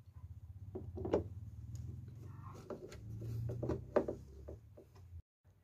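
Hand screwdriver driving a screw into the plastic back cover of an LG CRT TV: a low grinding of the screw biting into the plastic, with clicks and creaks as the driver is turned, loudest about a second in and again near four seconds. The sound cuts off suddenly shortly before the end.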